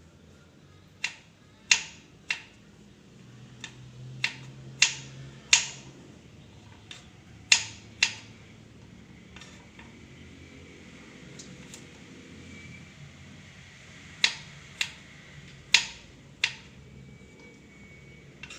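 Kitchen knife chopping a carrot into dice on a cutting board: a dozen or so sharp knocks at an uneven pace, with a longer pause in the middle before a few more cuts.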